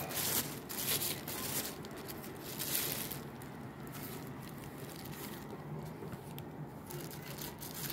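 Thin black plastic bag crinkling and rustling as it is handled. It is busiest for about the first three seconds, then fainter with occasional rustles.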